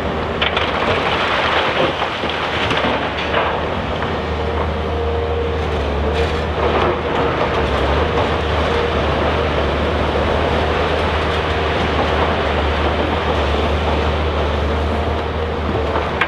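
Volvo EC460BLC crawler excavator's diesel engine working steadily under load, with a whine that comes and goes as the machine swings and digs. The bucket scrapes and clatters through crushed rock now and then.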